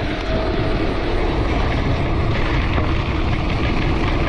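Wind rushing over the microphone of a handlebar-mounted camera on a moving mountain bike, mixed with the rumble of the tyres rolling on the road. The sound turns a little harsher about two seconds in.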